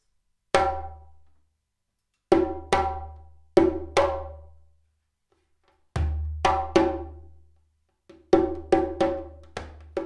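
Dugura-wood djembe struck by hand, each stroke ringing out over a deep bass resonance. A single stroke is followed by short groups of two, two and three strokes with pauses between, then a quicker run of about five strokes near the end.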